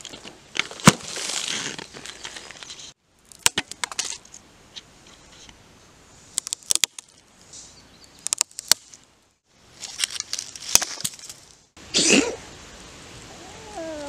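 A heavy log dragged through forest-floor litter, with a sharp loud knock about a second in. After a brief cut comes a series of dry twig snaps, each a short sharp crack, in several separate takes with quiet gaps between them.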